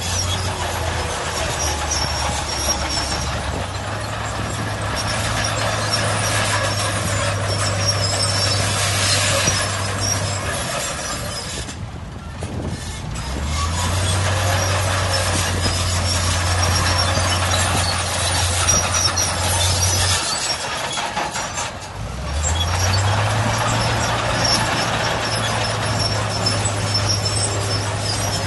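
Crawler bulldozer working: its diesel engine note rises and holds in three long stretches, easing off briefly about twelve and twenty-two seconds in, with the steel tracks squealing throughout.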